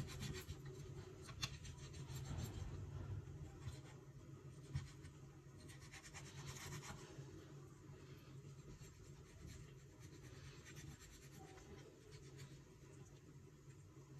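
Faint scraping and rubbing of a kitchen knife working through a whole mackerel on a wooden cutting board, with a couple of sharp taps of the blade on the board.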